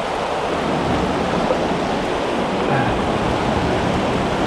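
Steady rush of spillway rapids running over rocks.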